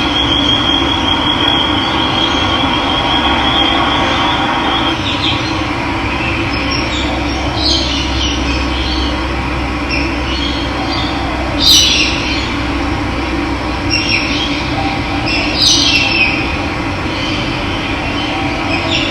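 Steady rush of running water with birds calling over it: a high wavering trill for the first five seconds, then a few short chirps, the loudest about twelve seconds in.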